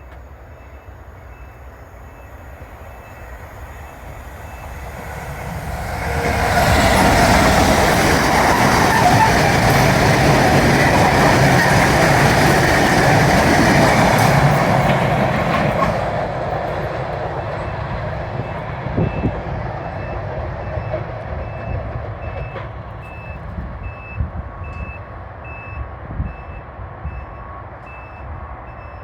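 A British Rail Class 66 diesel-electric freight locomotive passes: its two-stroke V12 diesel engine and wheels build to a loud rumble for about ten seconds. The engine sound then fades, leaving the freight wagons rolling and clattering over the rails. In the second half a high electronic beep repeats steadily underneath.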